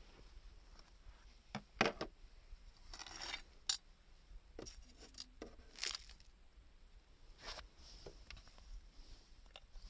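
Thin metal cans being cut and handled: scattered light clicks, clinks and short scraping, tearing sounds, with the loudest snaps about two and four seconds in.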